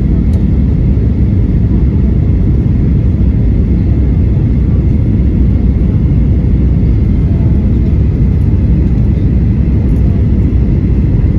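Steady low rumble inside the cabin of a Boeing 737-800 on approach, its CFM56 engines and the airflow heard from a window seat over the wing, with a faint steady high whine above it.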